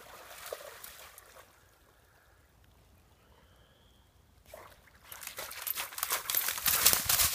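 Yellow Labrador retriever wading and splashing through shallow water. The splashing is light at first, dies away for a few seconds, then grows loud and choppy from about five seconds in as the dog moves quickly through the water.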